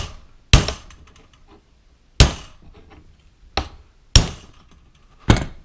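Hammer striking a steel pin punch six times at uneven intervals, sharp metallic blows each with a brief ring, driving a tight carrier latch pin out of a Franchi Affinity 3 shotgun receiver.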